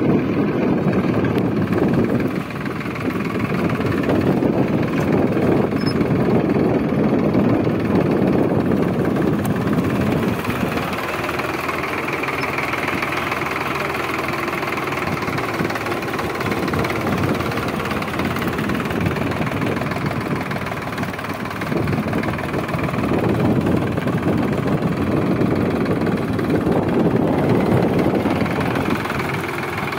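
Sonalika DI-745 III tractor's diesel engine running steadily, louder for the first ten seconds or so and again near the end.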